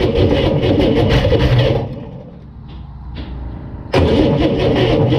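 Starter cranking a freshly rebuilt 1965 Corvair air-cooled flat-six on its first start attempt, in two bursts: one ending about two seconds in and another starting about four seconds in, with a quieter pause between. The engine does not catch; the owner blames a weak, dead battery.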